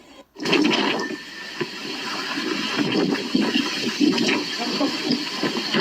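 Turbulent rushing water from a typhoon, a continuous noisy churning wash that begins abruptly after a short drop-out just after the start.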